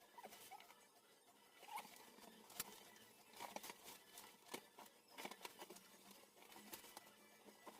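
Faint scattered scratches and light taps, a dozen or so irregular short clicks over several seconds, with one sharper tap about two and a half seconds in.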